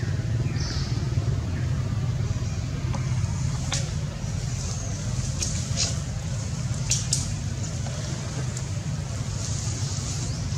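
Steady low rumble of background noise, with a few short sharp clicks about four and seven seconds in.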